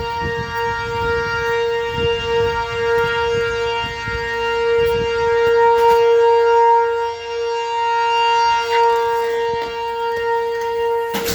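Outdoor tornado warning siren sounding during a test: one steady, really loud tone that slowly swells and fades. Low thuds come in the first few seconds, and a sharp thump near the end.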